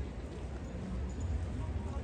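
Low wind rumble on the microphone with faint street noise and distant voices, heard while riding a bicycle through city streets.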